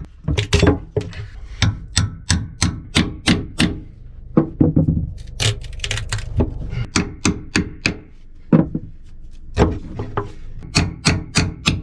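Hammer driving a cat's paw nail puller in under the nails that hold a plywood bulkhead panel to a deck beam. Runs of sharp metal-on-metal strikes, several a second, with short pauses between runs.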